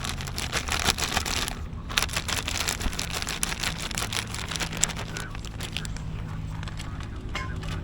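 Irregular crinkling and rustling with many sharp clicks, like something being handled, over a faint steady low hum.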